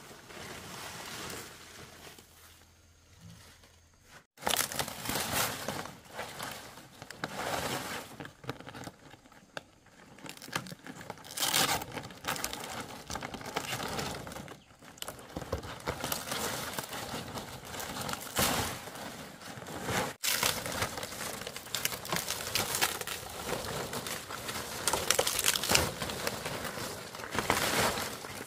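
Fresh fan-palm fronds rustling as they are carried, set down and spread out by hand, the rustle coming and going unevenly. It is faint for about the first four seconds.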